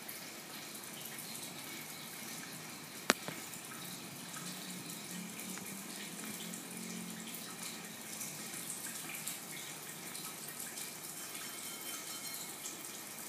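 Steady splashing and bubbling of water running through a saltwater aquarium's filter, with one sharp click about three seconds in.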